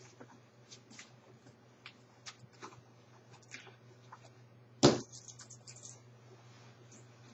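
Nylon winter parka rustling and crinkling as hands work at its collar and hood, in many short scattered rustles. About five seconds in there is one sharp, much louder snap, followed by a second of crackly rustling.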